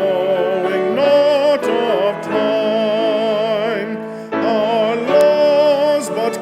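Hymn music: singing over piano and cello accompaniment, in phrases of long held notes with vibrato and a short break between phrases.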